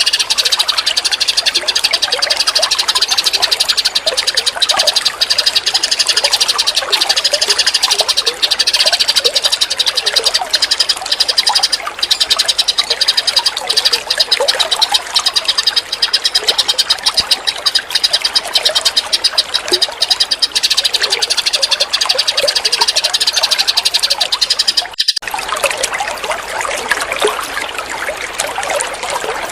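A dense, rapid pulsing chorus of high-pitched animal calls, with scattered bird chirps beneath. About 25 seconds in it cuts abruptly to the steady trickle of running water.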